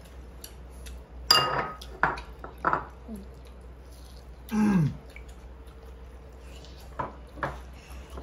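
Chopsticks and utensils clicking and clinking against bowls and dishes during a meal, with a loud sharp clink a little over a second in and a few lighter ones later. A short voiced sound falling in pitch comes near the middle.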